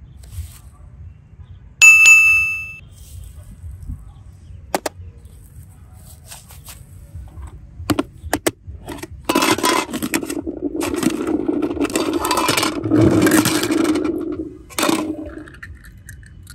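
A bright chime rings once, about two seconds in. Then a few handling clicks on plastic, and about five seconds of rustling patter as Orbeez water beads are tipped out of a plastic container into a tub.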